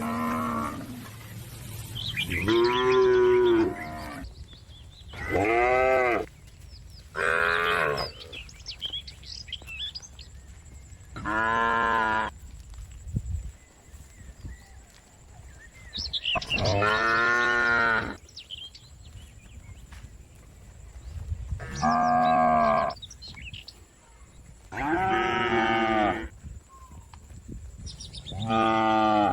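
Cattle mooing again and again: about nine long calls, each one to two seconds and rising then falling in pitch, with pauses of a few seconds between them.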